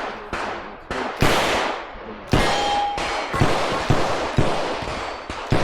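Revolver gunshots during a timed IDPA course of fire: about six shots at uneven spacing, each with a short echo, and a brief ringing tone after the second shot.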